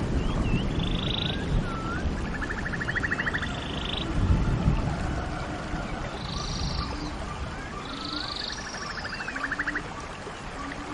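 Nature-ambience soundtrack of wild animal calls: short rising chirps, a rapid buzzing trill and higher rasping notes, the same sequence coming twice, over a low rumbling background.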